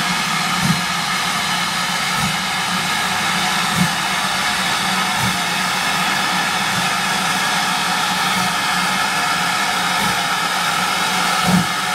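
GWR Manor-class 4-6-0 steam locomotive No. 7802 starting away under load: a steady loud hiss of steam with slow chuffs from the chimney, about one every second and a half.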